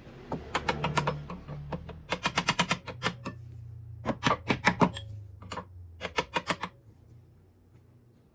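Hand ratchet clicking in a series of short bursts of rapid clicks, each burst one swing of the handle, as the sway bar mounting bolts are tightened down.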